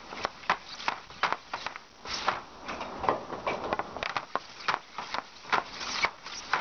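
CCM RBZ composite hockey stick taking quick shots off a shooting pad: a string of sharp, irregular clacks, about two or three a second, as the blade strikes pucks and scrapes across the pad.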